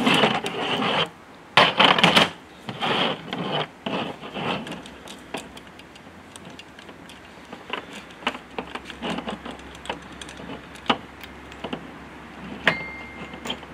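Steel saw chain clinking and rattling against the guide bar of an Echo Timber Wolf chainsaw as a new chain is worked on by hand, with bunched clatter in the first few seconds, then scattered single clicks.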